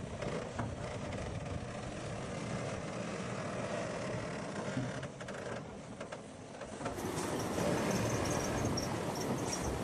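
Heavy diesel earthmoving machinery, dump trucks and a bulldozer, running steadily. About seven seconds in the sound grows louder and high metallic squealing comes in, typical of a bulldozer's steel crawler tracks.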